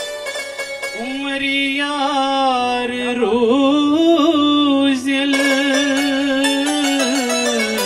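A man singing through a public address system, holding long notes with a wavering pitch, with keyboard accompaniment.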